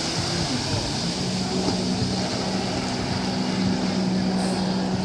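An engine running with a steady hum that settles onto one pitch about a second in, under a constant rushing noise.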